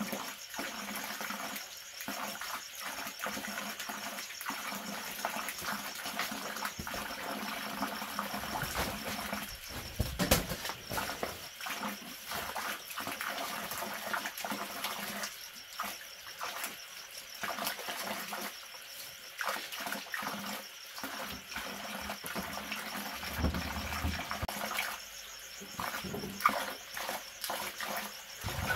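Irregular rustles, clatters and knocks of a split-bamboo sleeping mat being unrolled and laid out on a concrete floor, with one sharp knock about ten seconds in. Underneath, a steady background hiss with faint insect trilling.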